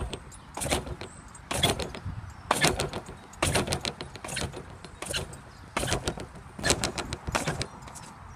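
In-ground trampoline taking repeated bounces, with a sharp hit from the mat at each landing about once a second.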